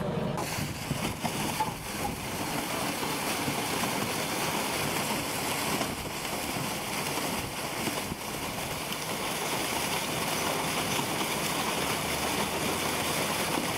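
Water and live carp gushing down a stocking chute and splashing into the lake: a steady, dense rush of splashing water.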